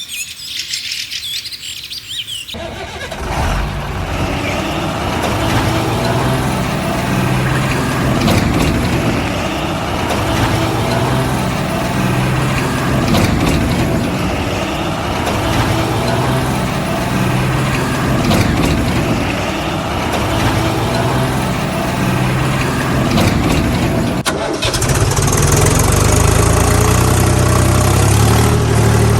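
Birds chirping, then an engine starts running steadily about two seconds in; about 24 seconds in it cuts to a louder, lower engine running at idle.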